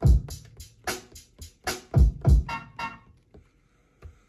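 Drum samples played by hand on the pads of a Roland SP-404 MKII sampler, hi-hats among them: a quick run of short hits, with loud deep hits at the start and about two seconds in. A short pitched note follows, and the playing stops about three seconds in.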